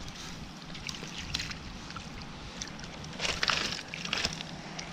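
Rounded river pebbles clicking and clattering as a mesh landing net is handled and laid down on them: a few sharp clicks, then a louder clatter of stones about three seconds in and another short one near four seconds, over a steady background hiss.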